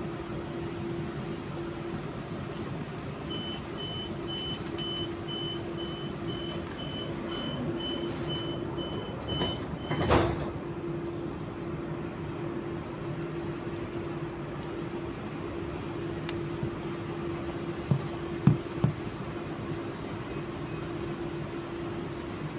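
Steady hum of an Auckland AM class electric train standing at a platform. From about three seconds in, a door warning beeps about twice a second for some seven seconds and ends in a loud thud as the sliding doors shut. A few short knocks follow near the end.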